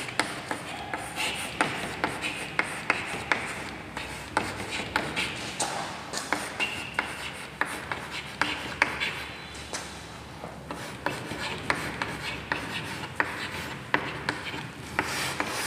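Chalk writing on a chalkboard: scratching strokes with many short sharp taps as the chalk meets the board.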